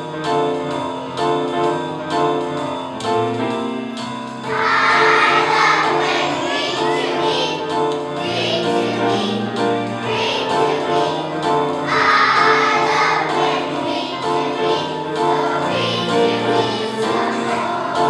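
Children's choir singing a song with instrumental accompaniment. The accompaniment plays alone at first, and the voices come in about four and a half seconds in.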